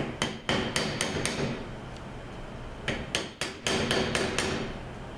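A steel pick tool clicking and tapping against a transmission clutch drum and its snap ring while it is worked behind the ring. There are two runs of quick, sharp metallic taps, one at the start and one about three seconds in.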